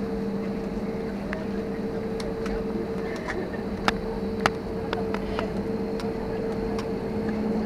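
Cabin sound of an Airbus A320-family airliner taxiing: a steady engine hum with two held tones, broken by a few sharp clicks and rattles, the two loudest about four seconds in.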